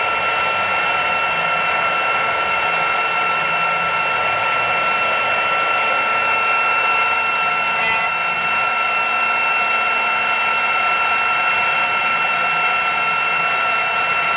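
CNC router spindle running with a steady high whine while its bit carves a wooden workpiece turning on the rotary axis, with the hiss of the cut wood throughout.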